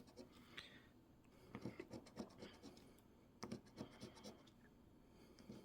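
A coin scratching the silver coating off an instant scratch lottery ticket: faint short strokes in several quick bursts.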